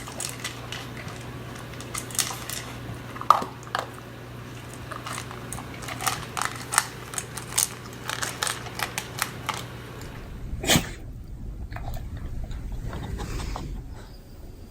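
A beagle chewing, with a rapid, irregular run of short wet clicks and smacks. One louder burst comes about ten and a half seconds in.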